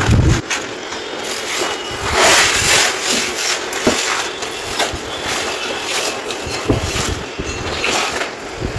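Concrete crumbling and scraping: a grainy run of crackles and rasps with sharp clicks scattered through, thickest about two seconds in.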